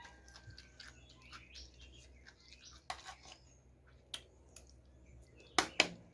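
Small birds chirping in the background, with a few light clicks and then two loud, sharp clicks close together near the end.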